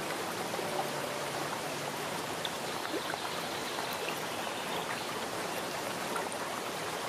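Aquarium water running in a steady trickle with a fine splashing hiss.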